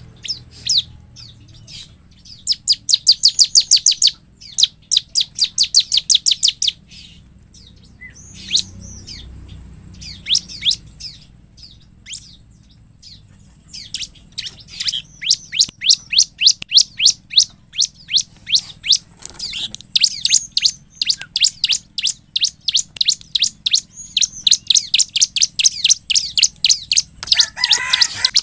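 Bar-winged prinia (ciblek) singing: rapid runs of sharp, high chirps in fast bouts, with scattered single notes and pauses in between. The chirping becomes almost continuous in the second half. A brief rustle sounds near the end.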